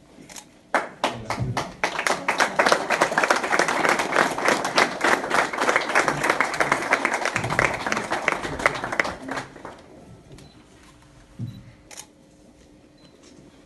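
Small crowd clapping and applauding, starting about a second in and dying away after about nine seconds.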